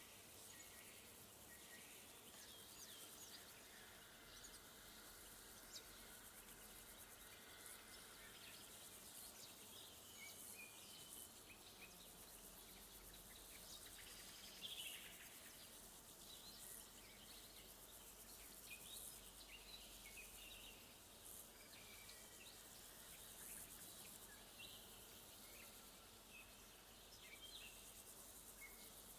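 Faint woodland ambience: many short bird chirps and calls scattered throughout, over a thin, high chirring of crickets.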